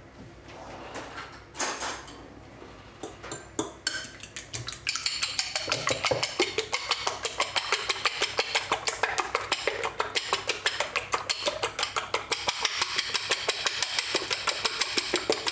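Eggs being beaten in a glass bowl with a metal utensil: a few scattered knocks at first, then from about four seconds in a fast, steady clicking of metal against glass.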